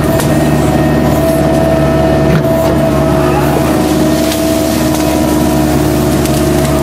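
Kubota U-45 mini excavator's diesel engine running steadily under work, with a steady high tone over it and a few brief knocks, one about two and a half seconds in.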